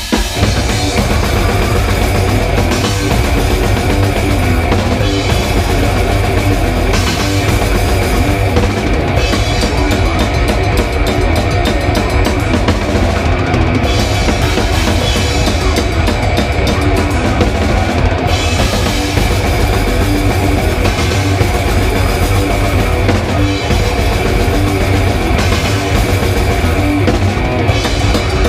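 A live rock band playing, heard close from the drummer's seat, with the drum kit (kick drum, snare and cymbals) loudest in the mix. The band comes back in right at the start after a brief break.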